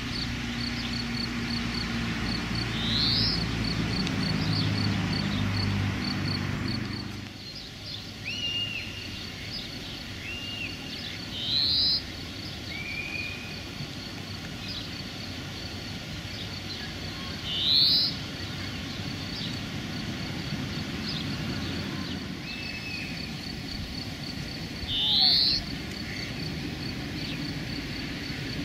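Outdoor bird calls: four loud, short rising whistles spaced several seconds apart over a steady high pulsing chirp and a few shorter chirps. A low rumble sits under the first several seconds and fades out.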